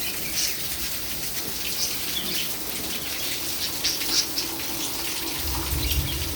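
Light rain falling: a steady patter with scattered individual drops. A low rumble comes in near the end.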